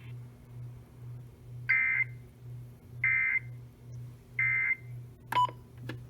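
Emergency Alert System end-of-message data tones: three short, identical bursts of warbling digital tone, about a second and a half apart, that mark the close of a broadcast alert. A low hum pulses underneath about twice a second, and two sharp clicks come near the end.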